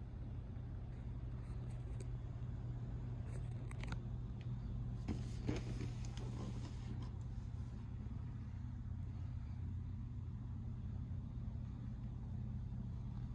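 Steady low background hum, with a few faint clicks and a short rustle near the middle.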